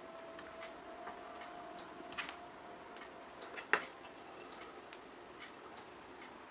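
Faint small clicks and taps of craft materials being handled on a work table, with one sharper click about three and a half seconds in.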